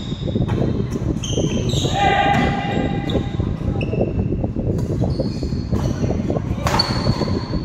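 Badminton doubles rally on a wooden indoor court: shoes squeaking sharply on the floorboards, footsteps, and rackets smacking the shuttlecock, several times a second throughout.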